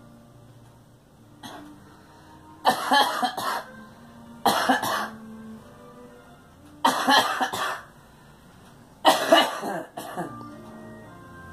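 A girl coughing in four short fits of a few coughs each, about two seconds apart, over background music.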